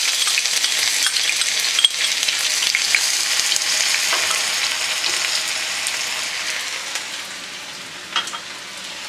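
Chopped shallots frying in very hot oil in a stainless steel skillet: a steady crackling sizzle that gradually eases off in the second half, with a few light clicks of a metal spoon stirring.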